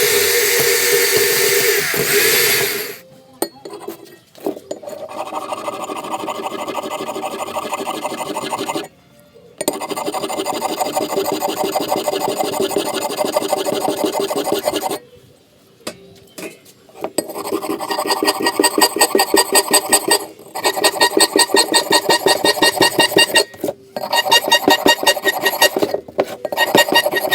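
Tool work on an old axe: a steady motorised whir for the first few seconds, then a fast, even run of rasping strokes, stopping and starting several times.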